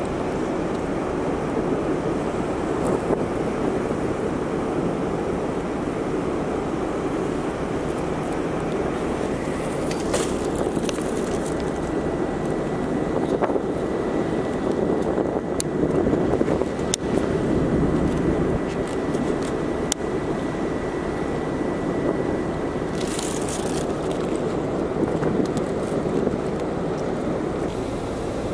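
Steady rushing noise of wind over the open top deck mixed with the running noise of the ferry Tsukushi under way. A faint steady high tone sounds for about ten seconds in the middle, and a few sharp clicks come and go.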